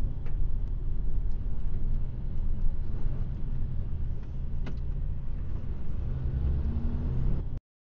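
A lorry's engine and road noise heard inside the cab through a dashcam microphone, a steady low rumble with a few faint clicks. It cuts off suddenly near the end.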